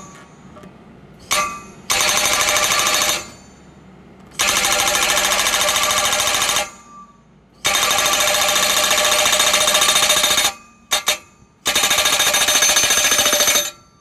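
Eterra PDX-750E breaker-style hydraulic post driver on a tracked skid steer, hammering a flat 8-inch wooden post into the ground with rapid blows. The blows come in several bursts of about two to three seconds, with short pauses between and two quick stabs near the end.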